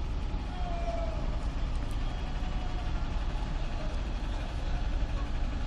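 Steady low engine rumble with a faint falling whine about half a second in.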